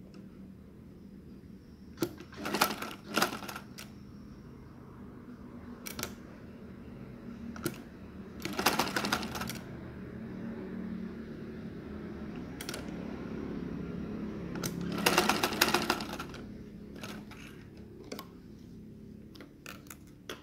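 Domestic sewing machine stitching in three short bursts of rapid clicking, about two seconds in, near nine seconds and near fifteen seconds, with a low hum under the middle part. Scattered single clicks come in between while the fabric is repositioned.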